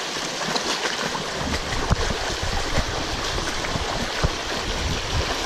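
Shallow stream rushing over rocks in a fast riffle, a steady watery hiss, joined from about a second and a half in by irregular low thumps.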